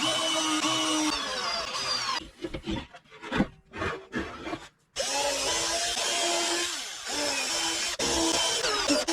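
A power tool running while working wood. About two seconds in it stops for a few seconds, with a few short knocks and scrapes, then it runs again about five seconds in.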